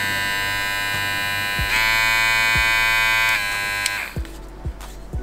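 JRL cordless hair clipper, a two-speed model, running steadily. It is switched up to its higher speed about two seconds in, dropped back to the lower speed a couple of seconds later, and switched off near the end.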